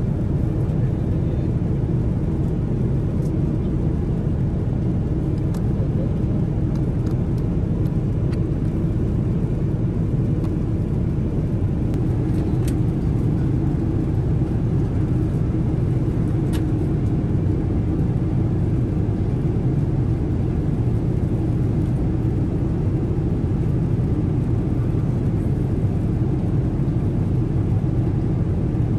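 Steady low cabin rumble of a Boeing 777-300ER airliner, air and engine noise heard from an economy seat, with a few faint clicks.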